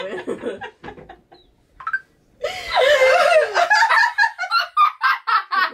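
Two women laughing. The laughter dies away to a brief pause, then a loud, squealing laugh breaks out about two and a half seconds in and runs into quick, repeated bursts of laughter.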